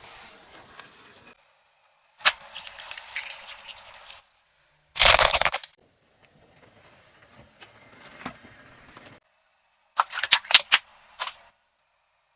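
Objects cracking and bursting under a car's tyre: a sharp crack followed by crackling, a loud burst about five seconds in, and a quick cluster of cracks near the end, each stretch cutting off abruptly.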